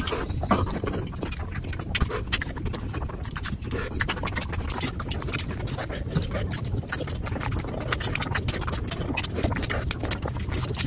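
Close-up wet chewing and lip-smacking of a steamed momo dumpling: quick, irregular mouth clicks all through, over a low steady hum.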